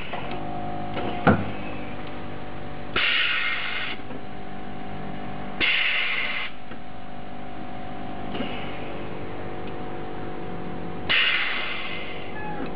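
Air suspension on a Fiat Punto: three short bursts of hissing air as the valves open to adjust the ride height, over a steady hum, with a sharp click about a second in.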